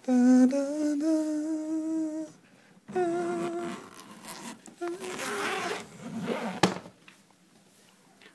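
A person humming a few long held notes with short breaks between them, the first ones stepping up slightly in pitch. A single sharp click about two-thirds of the way through.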